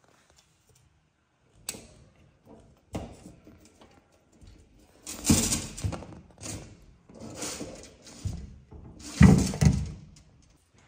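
Knocks and rattles from a glass cabinet and the handbags inside it as a small monkey moves about within it: several short, noisy bumps, louder and closer together in the second half.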